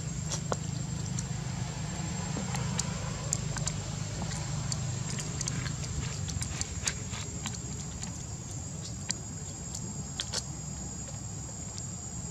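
Macaques chewing crunchy cabbage leaf and green beans: scattered small clicks and crunches over a steady low hum and a thin, steady high tone.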